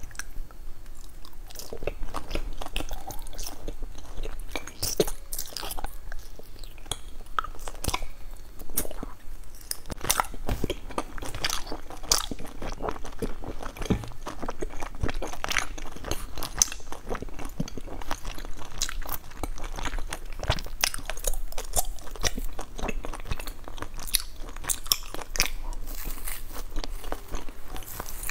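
Close-up chewing and biting of sesame-coated glutinous rice cakes (mochi), a dense run of sharp mouth clicks and crunches.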